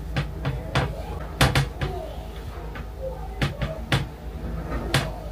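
A run of sharp clicks and knocks at irregular spacing, about nine in five seconds, from makeup cases and small tools being handled and set down on a hard surface.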